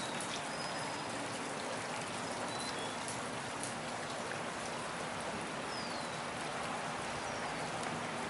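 Steady rain falling and splashing on flooded ground, with a few short, faint high chirps through it.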